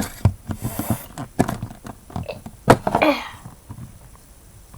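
Scattered clicks and knocks of objects being handled, with a brief rustle near one second and a short, falling voice-like sound about three seconds in.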